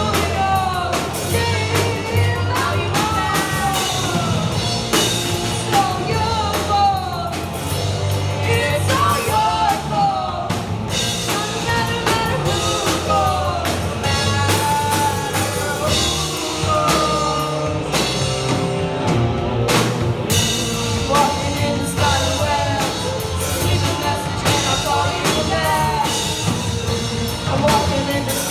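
Youth rock band playing a song live: a singer over drum kit and bass guitar, with a steady beat.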